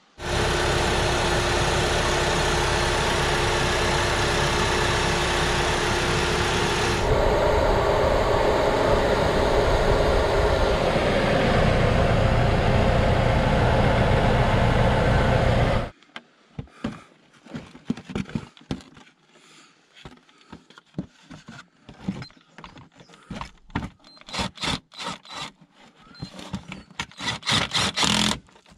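Hyundai i10's engine running steadily, heard from beneath the car by the automatic gearbox just refilled with fluid; it cuts off suddenly about sixteen seconds in. Then a string of short clicks and knocks from hands handling something under the front wheel arch.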